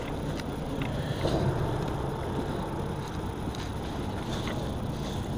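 Steady low rumble of traffic on the causeway bridge overhead, with a few faint clicks.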